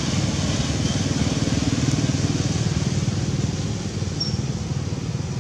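An engine running with a low, rapid throb, swelling a little about two seconds in and then easing off.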